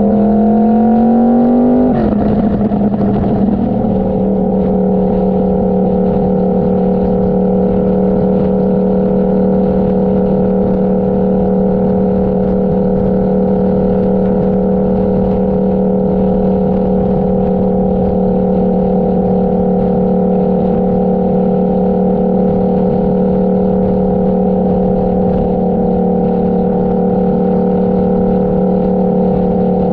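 Motorcycle engine pulling in gear with its pitch rising, a gear change about two seconds in drops the revs, then it runs at a steady cruising speed.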